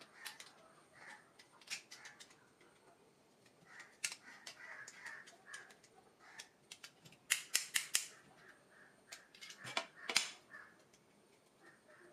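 Sharp plastic clicks and snaps as an Anchor Penta modular switch is pressed into and worked out of its plastic mounting frame by hand. There is a quick run of about four clicks around seven seconds in, and the loudest snaps come near ten seconds.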